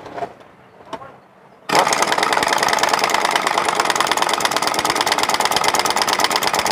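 An impact wrench hammers rapidly on the clutch housing nut of a Honda Vario 125's CVT, tightening it. It starts suddenly about two seconds in after a few light clicks as the socket is fitted.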